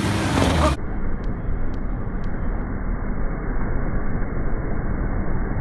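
A 4x4's engine running under outdoor noise. After under a second the sound changes abruptly to a muffled, even low rumble with no high sounds, and three faint ticks about half a second apart.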